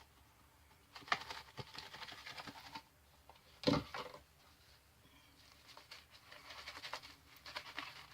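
Shaving brush swirling and scrubbing lather, soft scratchy strokes in short runs, with a quick rhythmic run of strokes near the end.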